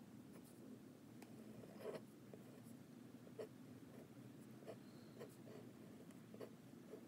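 Jinhao 750 fountain pen nib scratching faintly on paper in short cursive strokes.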